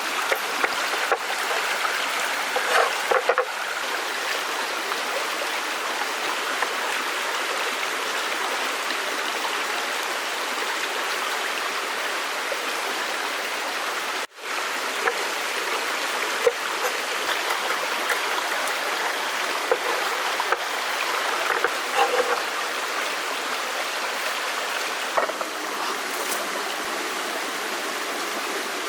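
A stream of water rushing steadily over rocks, with a brief break about halfway through.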